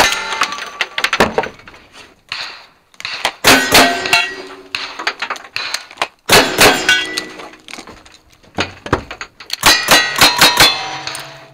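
Gunshots from cowboy action firearms in quick clusters, each hit answered by steel targets ringing. Four groups of shots come about two to three seconds apart as the shooter moves from rifle to shotgun to single-action revolver, with quieter handling sounds between.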